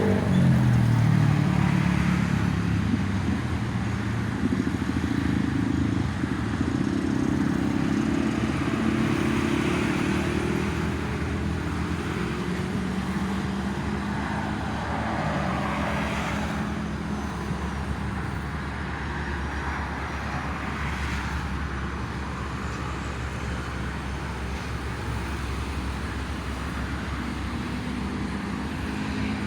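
Steady road traffic: vehicle engines and tyre noise from passing cars and motorcycles, swelling and fading as they go by.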